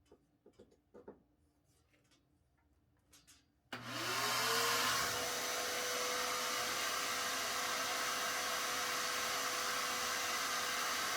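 A few faint taps, then about a third of the way in a power tool's electric motor switches on. It spins up over about a second to a steady high whine and runs on with a loud rushing noise.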